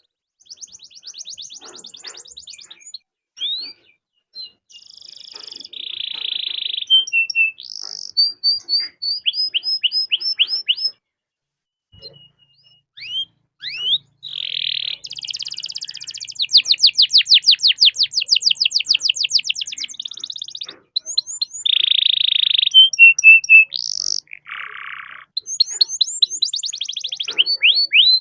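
Domestic canary singing a long song of fast rolling trills, rapid repeated chirps and short buzzy notes, with a brief pause about halfway through.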